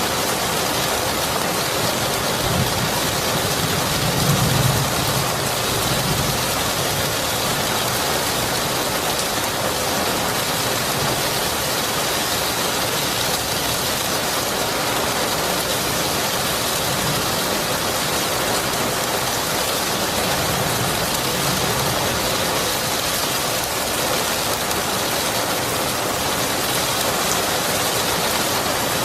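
Steady heavy rain, with a soft low rumble of distant thunder about four seconds in and a fainter one around twenty seconds.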